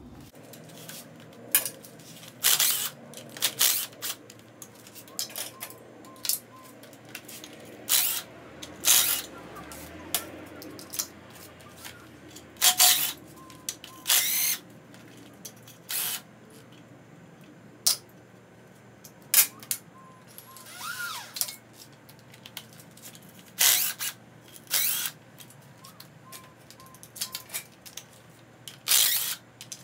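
Cordless drill/driver run in many short bursts, spinning nuts off the studs of an engine case, with sharp metallic clicks between the runs.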